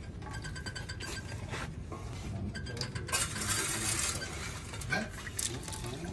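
Metal clinks and taps as the ball valve and spout pipe of a screw oil press's outlet are handled over a stainless steel bowl, then a stream of oil begins pouring into the bowl. A steady low hum runs underneath.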